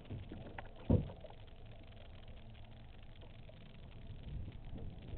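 Boat engine running low as the boat backs up, with a sharp thump about a second in.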